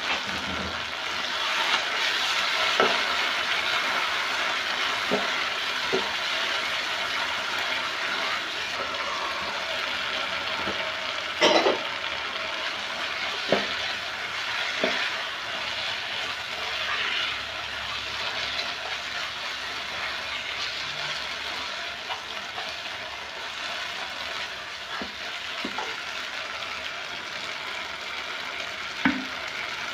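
Beef stew with tomato, onion and green pepper sizzling steadily in a nonstick pot. It is stirred with a spatula that knocks against the pot now and then, loudest about eleven seconds in.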